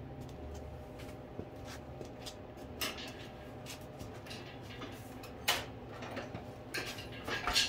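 Scattered light clicks and knocks of tools and metal parts being handled at a workbench, a few at first and more and louder in the last few seconds, over a steady low hum.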